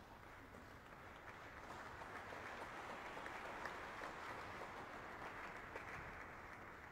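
Audience applauding: a faint, steady patter of many hands clapping that swells through the middle and eases slightly near the end.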